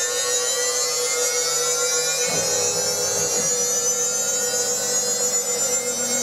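Small CNC milling machine's spindle running with a steady whine, the higher overtones slowly rising in pitch as it gains speed. A brief low hum joins in about two and a half seconds in.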